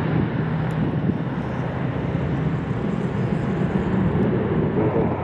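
Twin-engine jet airliner climbing out just after takeoff: a steady, low jet-engine rumble.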